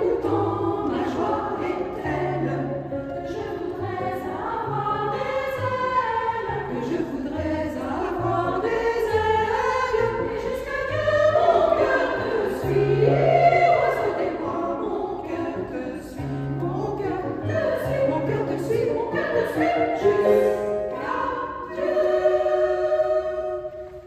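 Women's choir singing in several parts, with vibrato on the held notes, over a keyboard accompaniment playing held low notes.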